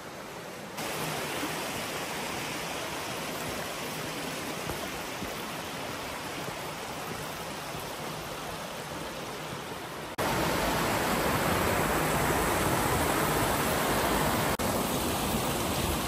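A shallow, rocky woodland stream rushing over stones: a steady hiss of running water that suddenly gets louder about a second in and again past the middle.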